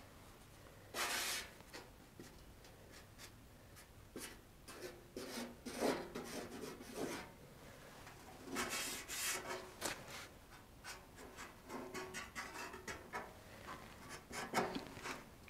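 Marker scratching across a rusty sheet-steel inner fender panel in irregular short strokes as a cut line is drawn, with a hand rubbing over the rough metal.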